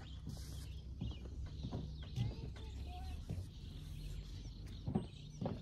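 Faint outdoor background: a steady low hum with scattered light knocks, the strongest about five seconds in, and a few faint chirps in the middle.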